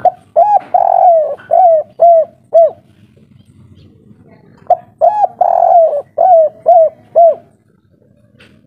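Spotted dove cooing loudly in two phrases a couple of seconds apart, each a run of about six short rising-and-falling coos with one longer, drawn-out coo in the middle.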